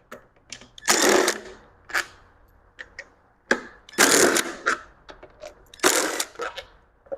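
A cordless power tool runs in three short bursts, about a second in, around four seconds in and near six seconds, spinning out the bolts of an engine's front cover, with small metal clicks between.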